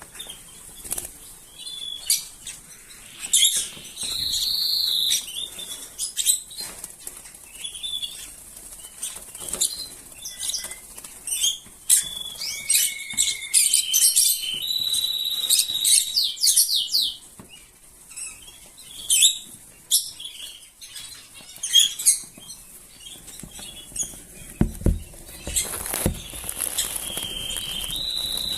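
Rosy-faced lovebirds chirping: a busy run of short, sharp high chirps with a few longer shrill calls held for a second or so.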